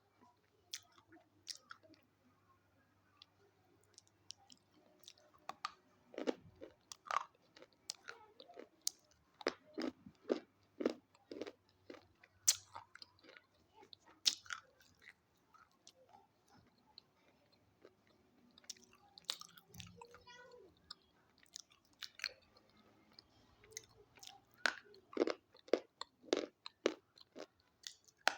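Close-up crunching and chewing of crisp sticks: sharp cracking bites come in bursts, with quieter chewing pauses between them.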